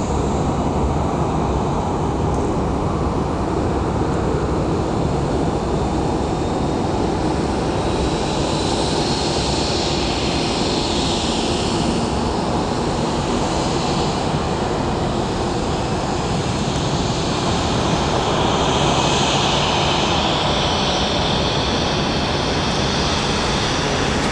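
Jet airliner's engines: a steady loud rush with a higher whine that swells and eases twice.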